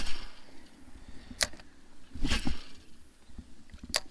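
A few sharp clicks and a dull knock from handling a spinning rod and reel, spread a second or so apart.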